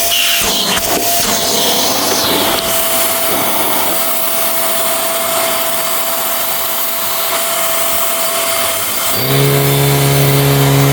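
Vacuum cleaner running steadily, a dense rushing noise with a thin whistling tone. About nine seconds in, a lower, steady hum with several pitches starts and keeps on.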